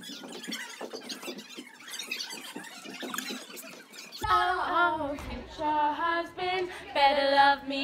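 Faint handling noise and background hubbub, then about four seconds in a girl's high voice sings a few held notes that bend and waver, in a deliberately silly way.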